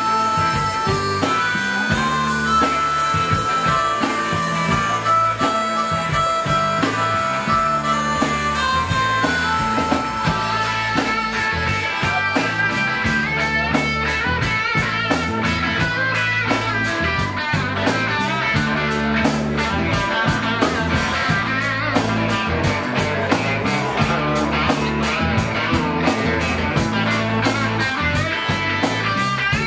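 Live band playing an instrumental rock passage: electric guitar, bass guitar and drum kit with a steady beat. Long held lead notes for about the first ten seconds give way to busier playing.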